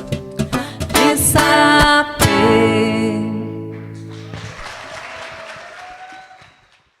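Acoustic guitar strumming the song's last few chords, then a final chord that rings on and dies away. A faint hiss of noise trails off after it.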